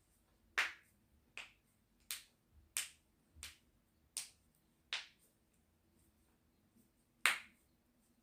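A series of sharp clicks: seven evenly spaced, about one every 0.7 seconds, then after a pause of about two seconds one last click, with the first and last the loudest.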